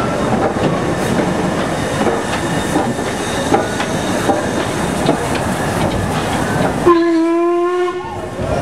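LMS Black Five steam locomotive No. 45337 moving slowly past, with a steady rumble and scattered clanks from its wheels and motion. About seven seconds in, it gives one steady blast on its whistle lasting about a second and a half.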